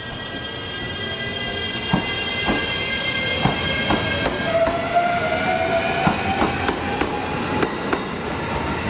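JR Shikoku 7200 series electric train pulling out and accelerating past. Its motor whine rises steadily in pitch as it gathers speed, and the wheels clack over the rail joints, the clacks coming closer together as it speeds up.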